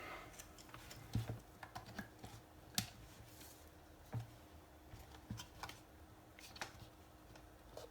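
Faint, scattered light clicks and taps of small plastic and metal parts, cables and connectors being handled on a workbench, spaced irregularly about once a second, over a faint steady hum.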